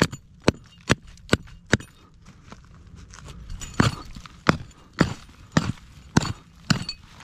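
Pick mattock striking hard, stony ground, about two blows a second. There are five quick strikes, a pause of about two seconds, then a steady run of further strikes.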